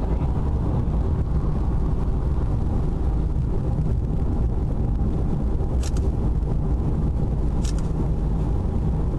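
Steady road and engine rumble of a car driving along, heard from inside the cabin. Two brief high clicks come about six and eight seconds in.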